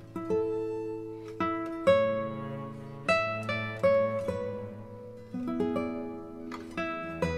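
Background music: an acoustic guitar picking single notes and chords, each note struck and then fading.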